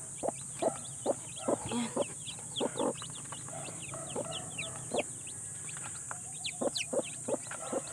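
Broody hen clucking in short low calls, about two a second, while a hand reaches under her on her nest of hatching eggs. Newly hatched chicks peep over it in many quick, high, falling notes.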